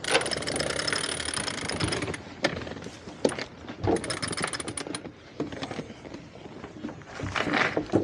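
A rapid mechanical ratcheting rattle, twice: about two seconds long at the start, then about a second around four seconds in, with a few separate knocks between.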